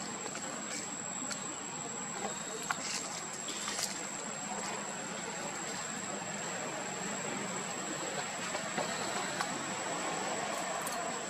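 Steady outdoor background hiss with a thin, constant high whine and a few faint clicks; no clear animal calls stand out.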